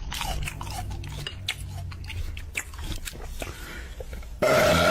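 Irregular crunching and clicking like chewing, then a loud burp near the end.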